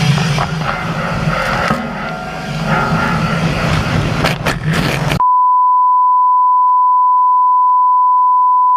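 Harvest machinery engine running with a steady low drone and clatter, cut off suddenly about five seconds in by a steady high-pitched beep tone that holds to the end.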